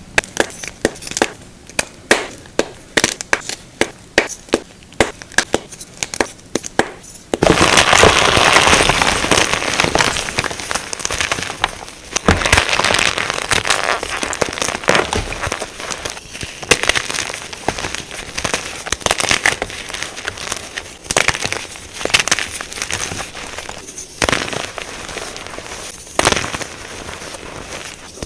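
Blocks of gym chalk snapping in a series of sharp cracks, about two a second. After about seven seconds the chalk is crushed, a dense crunching and crackling that swells and eases in waves.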